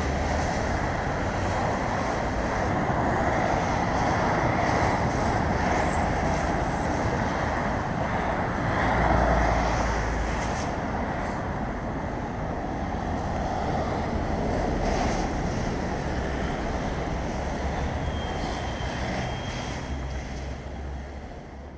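Steady rushing noise of wind buffeting the moving camera's microphone, mixed with road traffic going by. It swells briefly about halfway through and fades near the end.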